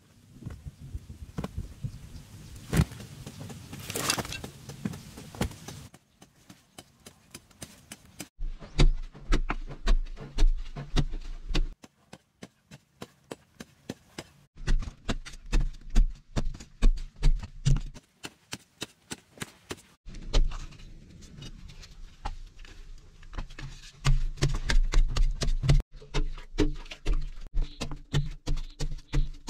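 Footsteps on dry dirt at first, then a hand digging tool chopping into hard, dry clay soil in repeated strokes, a few a second, with clods of earth knocking and falling. The strokes come in several separate runs.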